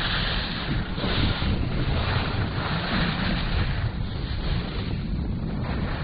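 Wind buffeting the microphone of a camera moving fast downhill on skis: a loud, rough rush of rumbling noise in uneven gusts, its upper hiss thinning a little after about four seconds.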